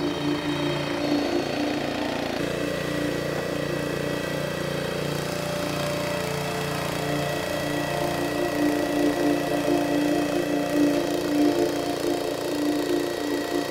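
Small gasoline engine of a hydraulic log splitter running steadily, its note changing about two seconds in as the splitter is worked.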